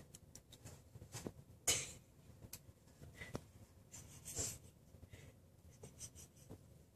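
Two cats at the gap under a door: faint scratching and rustling of paws on carpet and door wood, with two short, breathy puffs, the louder one about two seconds in and another about four and a half seconds in.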